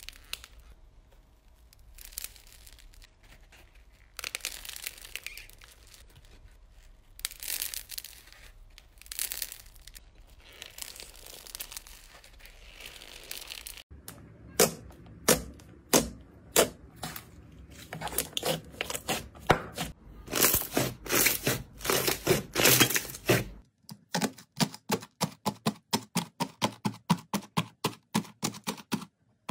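Slime being squeezed and poked, with crinkling, crackling and popping. There are soft swishing crinkles at first, louder sharp pops and crackles from about halfway, and a quick, even run of small clicking pops near the end.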